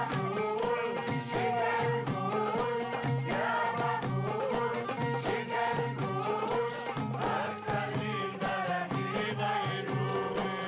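Middle Eastern folk dance music: voices singing a wavering melody together over a steady, driving beat.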